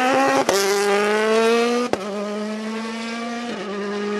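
A World Rally Car's 1.6-litre turbocharged four-cylinder engine running at high revs as the car drives along the stage, its pitch rising at first and then holding steady. It is broken by a sharp click about half a second in and again near two seconds, after which it is a little quieter.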